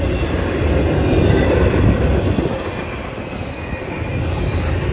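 Double-stack intermodal freight cars rolling past on steel rails: a steady rumble and rattle of wheels and cars with a thin wheel squeal over it, loudest about a second in and easing slightly after the middle.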